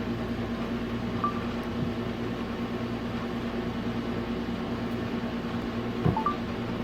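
Steady mechanical hum of an air conditioner or similar appliance motor in a small room, with a low even tone; two faint short high blips, about a second in and near the end.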